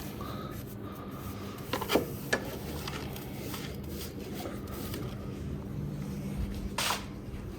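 Ash being cleaned out of a homemade fireplace: a few sharp knocks about two seconds in, then a short scrape near the end.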